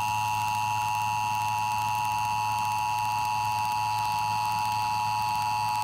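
Emergency Alert System two-tone attention signal, the 853 Hz and 960 Hz tones sounded together, generated by a Sage Digital ENDEC and carried on TV audio. It marks the start of a required monthly test. A steady, unchanging dual tone.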